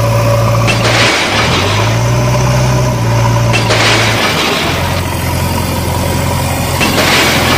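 Heavy-vehicle engine running steadily with a low hum. Its pitch shifts about a second in and again around four seconds in, and short hissing bursts come every few seconds.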